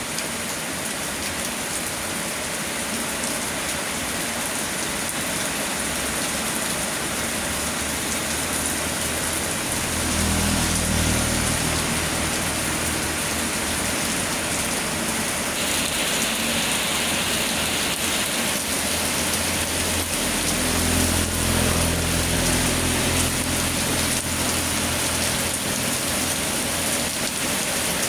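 Steady rain falling, an even hiss throughout. A low hum rises under it about ten seconds in and again from about twenty seconds.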